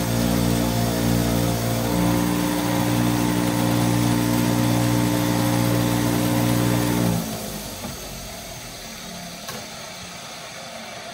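Motor-driven wire wheel running with a steady hum and a harsh wire-brushing hiss as an old wrench is held against it to scrub off grime and reveal its maker's stamp. About seven seconds in the motor hum stops abruptly, leaving a fainter hiss.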